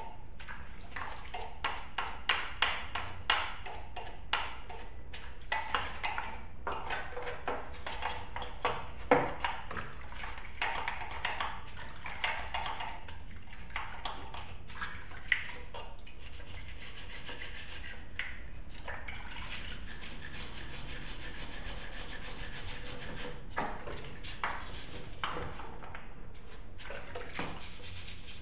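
Brush scrubbing pitch gum and grime off a chainsaw's housing, wet with Simple Green cleaner. The quick scratchy strokes come with light clicks and knocks, and the scrubbing turns steadier in the second half.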